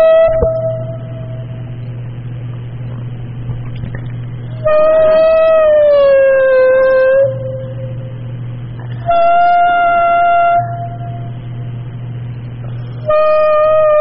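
A series of sustained pitched tones, each rich in overtones and lasting about one and a half to two and a half seconds. The middle one slides down in pitch. Between them a steady low hum cuts out whenever a tone sounds.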